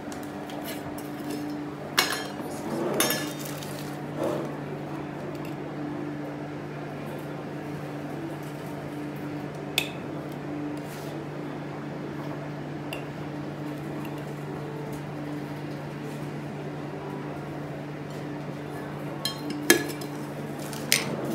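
Scattered clinks and knocks of a spoon and a glass spice jar against a glass mixing bowl while spice is put on raw chicken, several in the first few seconds and two more near the end, over a steady low hum.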